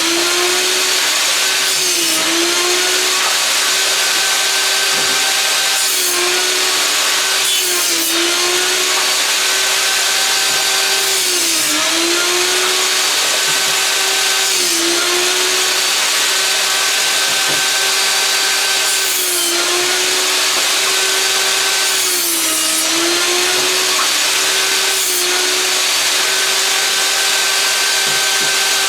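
Einhell table saw running steadily and ripping through old wooden boards, cut after cut. The motor's pitch sags briefly each time the blade bites into a board, about every three to four seconds, over a constant high whine and sawing hiss.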